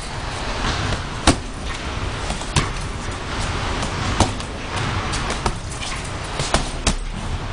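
Boxing gloves punching a hanging heavy bag: several sharp, irregular thuds about a second apart, the loudest about a second in, over steady background noise.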